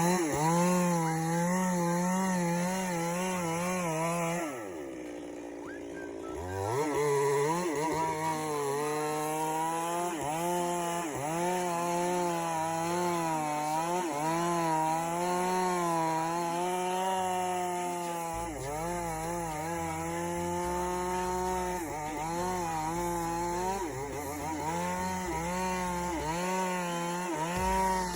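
Stihl MS 382 two-stroke chainsaw cutting timber, its engine note wavering under load. About four and a half seconds in, the saw drops to a lower, quieter note for a couple of seconds, then revs back up and keeps cutting.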